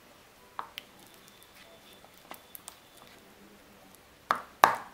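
Sticky fluffy slime being squished and kneaded by hand in a plastic bowl: scattered wet squelches and sticky pops, the loudest two just after four seconds in.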